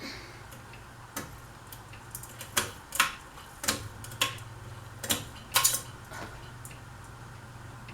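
Ceiling fan running on medium speed with a low steady hum, and about ten sharp, irregular clicks spread over the middle few seconds.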